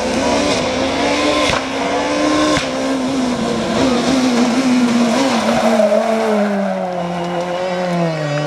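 Rally car engine at high revs, its pitch rising and falling with throttle and gear changes, with a couple of sharp cracks in the first few seconds. The engine note drops steadily over the last few seconds, then picks up again at the very end.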